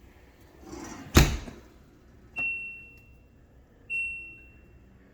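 LG dishwasher's detergent dispenser lid snapping open with one sharp thunk, as the diagnostic test cycle fires the dispenser. Then the control panel gives two short high beeps about a second and a half apart as the test steps on.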